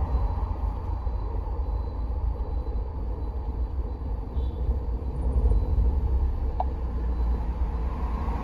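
Maruti Suzuki car engine running with a low, uneven rumble: the engine is misfiring.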